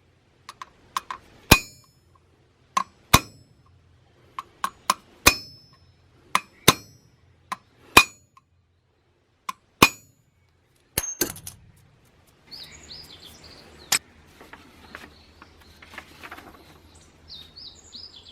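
Hammer striking metal transmission parts in sharp, ringing blows, roughly one a second and often in pairs, stopping about eleven seconds in. Birds chirp faintly after the blows stop.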